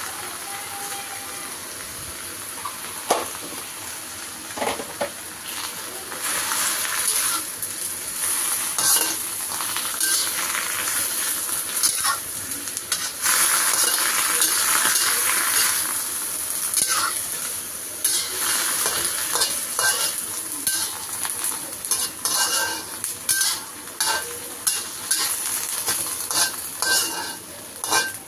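Bok choy frying in a wok with a steady sizzle, while a metal spatula scrapes and clinks against the pan as the greens are tossed. The sizzle is loudest in the middle, and the scraping comes in quick repeated strokes near the end.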